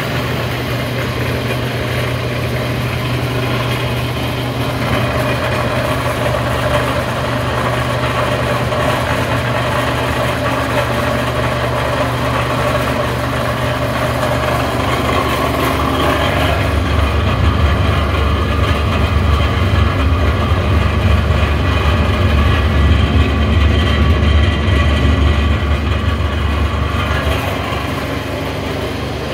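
LDPE film recycling machinery (agglomerator and extrusion line) running with a loud, steady hum. About halfway through, the low hum deepens and grows louder, then eases slightly near the end.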